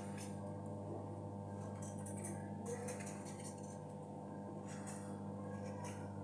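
A kitchen knife cutting and scraping through a peeled white vegetable held in the hand, in two short spells of soft scraping, over a steady low hum.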